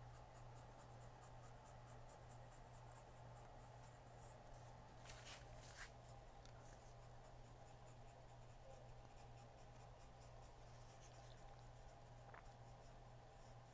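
Very faint rubbing of a cotton swab scrubbing residue off the LCD glass's contacts, in repeated light strokes over a steady low hum, with a couple of faint clicks about five seconds in and near the end.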